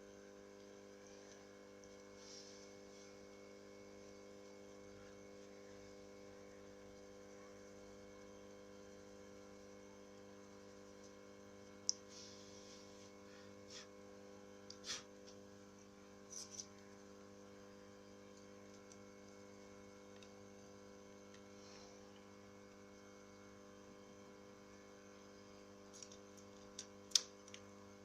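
Faint steady electrical hum with a few small sharp clicks, a scattered handful in the middle and a quick cluster near the end, typical of tools and parts being handled on a phone during a touchscreen replacement.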